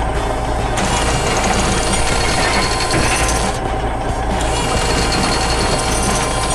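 Excavator sound effect: the engine running steadily under a continuous mechanical rattle as the machine works its claw.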